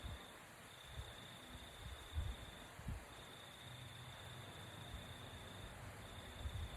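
Faint breathing of a sleeper, a few short low breaths heard about two and three seconds in and again near the end. A steady high-pitched tone runs in stretches of about two seconds with short breaks.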